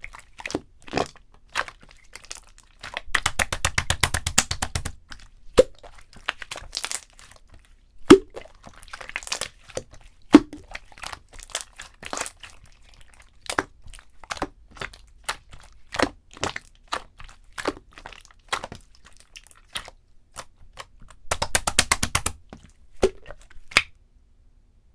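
Purple jelly-textured slime being squeezed and pressed by hand, making sharp clicks and pops. Two runs of rapid crackling come about three seconds in and near the end.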